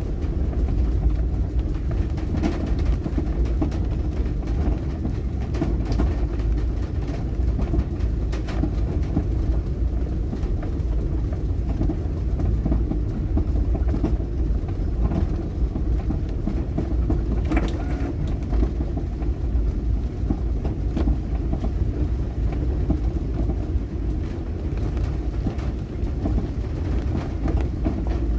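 Steady low rumble of a car driving, heard from inside the cabin, with scattered light ticks.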